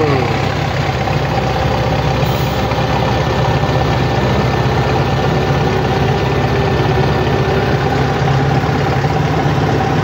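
Tractor's diesel engine idling steadily, heard from inside its cab.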